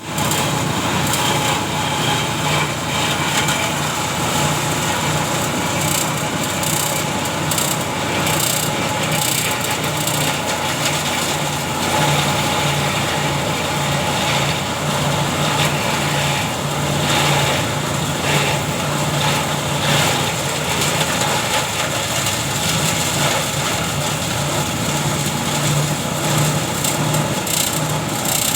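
Multi-purpose chopper machine running steadily, a constant low motor hum under an even, dense noise of chopping.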